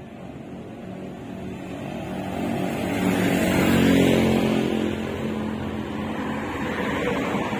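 A motor vehicle passing by on the road: its engine grows steadily louder to a peak about four seconds in, then eases off.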